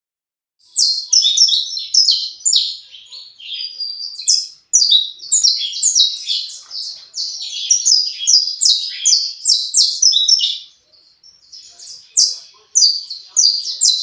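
Saffron finch (canário-da-terra) of the cinnamon mutation singing: a fast, continuous string of high chirping notes that breaks off about ten and a half seconds in and starts again a second or so later.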